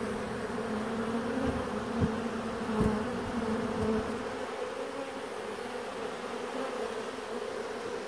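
Steady buzzing of a swarm of honey bees crowding onto and into a hive box, with bees at the entrance fanning their wings, a sign that the swarm is settling into the box. A few soft bumps sound in the first three seconds.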